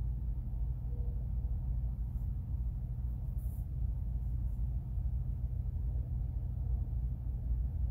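A steady low rumble inside an RV, with a faint brief hiss about three and a half seconds in.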